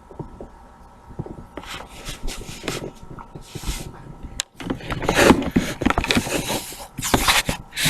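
Hands working and stretching calzone dough on a floured surface: irregular rubbing and scraping with small taps.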